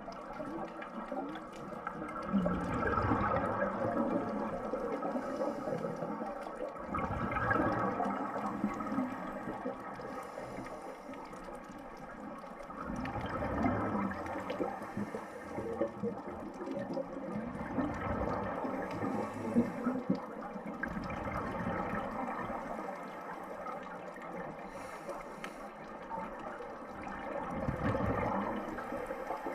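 Scuba regulator exhaust bubbles gurgling underwater, swelling in rough surges every few seconds with each exhaled breath.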